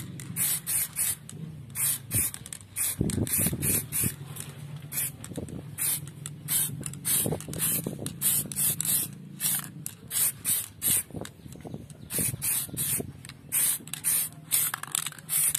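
Aerosol can of black Samurai Paint spraying in many short hissing bursts in quick succession, about two or three a second, laying a thin first coat.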